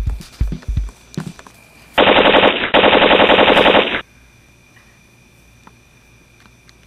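Machine-gun fire sound effect: two rapid bursts with a brief break between them, starting about two seconds in and stopping sharply about two seconds later. A few low thumps come before it.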